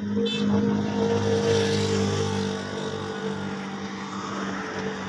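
Massey Ferguson 260 Turbo tractor's diesel engine idling with a steady hum. A louder rushing swell rises about a second in and fades by about three seconds.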